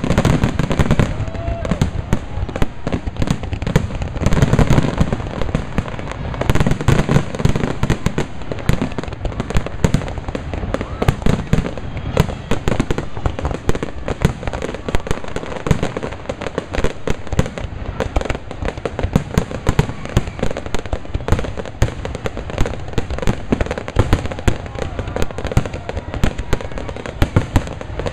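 Aerial fireworks shells in a finale barrage: a dense, unbroken run of overlapping bangs and pops, many a second, with no pause.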